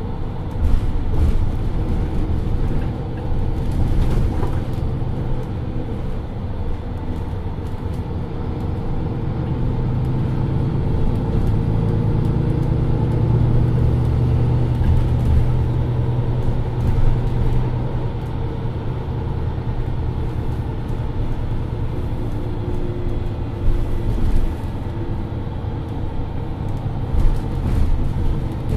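MAN Lions City Euro 6 city bus's diesel engine heard from inside the passenger cabin: a steady low drone that grows louder from about ten seconds in, then eases back after about eighteen seconds.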